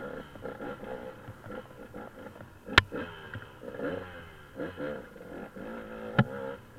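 Off-road vehicle engine running at changing revs over rough ground, with two sharp knocks, the louder about three seconds in and another near the end.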